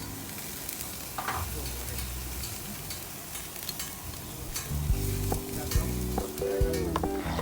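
Pork sizzling on a gas grill, a steady hiss dotted with small pops. Music with a steady beat comes in about five seconds in.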